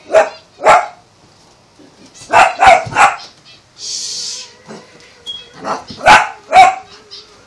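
A dog barking in short loud bursts: two barks, then three quick ones, then a few more near the end, with a brief hiss in between. The barking is excited, from a pet dog chasing a child in play.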